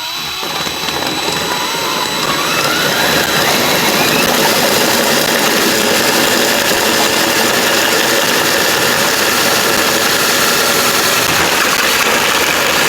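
Drill running a hole saw through aluminum tubing: a loud, steady cutting and grinding noise, the drill's pitch rising as it spins up at the start.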